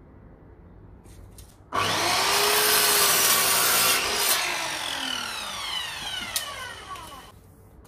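Electric mitre saw starting up about two seconds in and cutting through a length of timber. After a couple of seconds the blade is released and winds down with a falling whine that fades over about three seconds.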